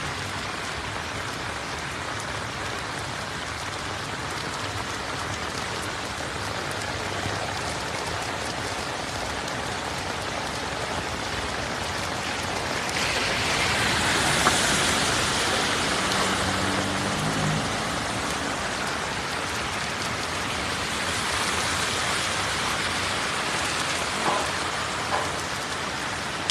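Heavy rain falling steadily, swelling louder for a few seconds about halfway through, with a brief low hum a little after and two small knocks near the end.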